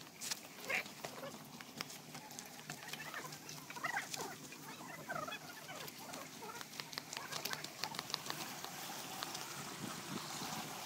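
Footsteps on a dry dirt-and-stone path, many short irregular scuffs and crunches, with faint bird calls in the background.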